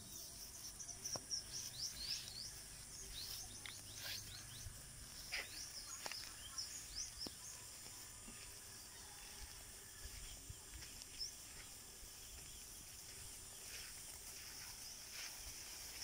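Small birds chirping in quick clusters of short, high, falling notes, thinning out after about eleven seconds, over a faint steady high-pitched drone.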